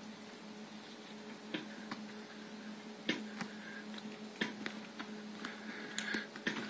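A cat batting at and pouncing on a pair of in-ear headphones, making scattered light clicks and taps, the sharpest about three seconds in and a quick run of them near the end, over a steady low hum.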